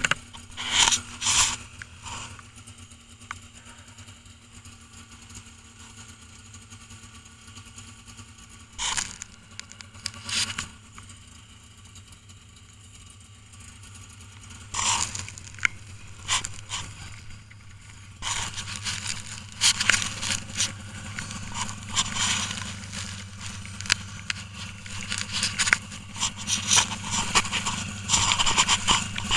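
Snowmobile engine idling with a steady hum. Over it come close crunching and scraping of snow and rustling of a jacket, a few sharp knocks early on, and much busier scraping from about two-thirds of the way in.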